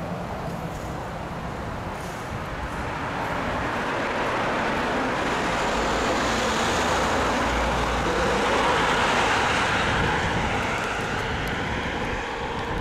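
Road traffic noise: tyre and engine rush of a passing vehicle, swelling to its loudest a little after the middle and easing off near the end.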